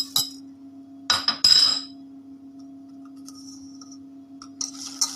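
A utensil clinking and scraping against a mixing bowl while a lemon cream base of yolks, sugar, lemon juice and zest is mixed. There is a clatter of scraping about a second in, a quieter stretch, then quick repeated clinks of stirring near the end. A steady low hum runs underneath.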